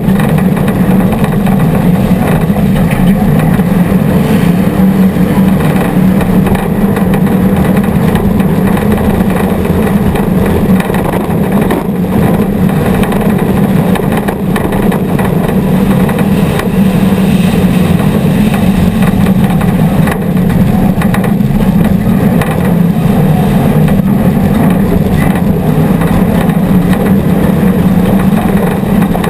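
Off-road race vehicle engines running hard, a loud, steady drone.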